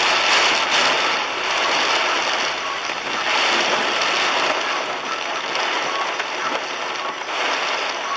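Torrential rain from a sudden cloudburst drumming on a moving car, heard from inside through the dashcam: a dense, loud hiss that swells and eases every second or two.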